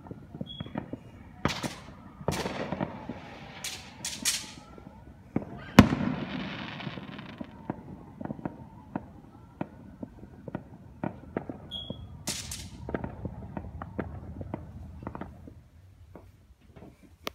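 Fireworks going off across the neighbourhood: a string of bangs and crackles with several short hissing bursts. The loudest bang comes about six seconds in and dies away slowly.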